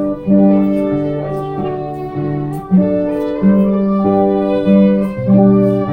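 Small acoustic folk band playing a lively English country dance tune: a fiddle carries the melody over plucked bouzouki and guitar, with a new note or chord about every half second to second.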